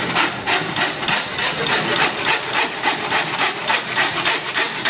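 Zippo 4-in-1 Woodsman's saw blade sawing back and forth through a deer's leg, a steady rasp of about four strokes a second.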